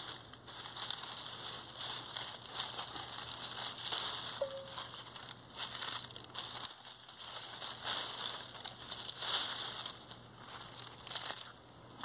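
Dry grass, twigs and dead leaves crackling and rustling in irregular bursts as they are pulled up and gathered by hand.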